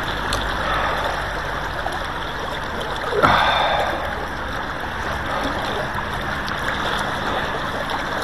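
River current flowing steadily past close by, with a brief, louder splash about three seconds in.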